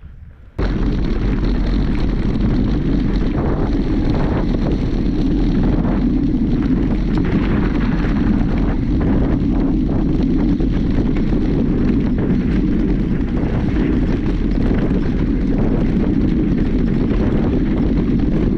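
Mountain bike riding over a rough trail: loud, steady wind buffeting on the microphone with a continuous clatter and rattle of the bike. It starts suddenly about half a second in.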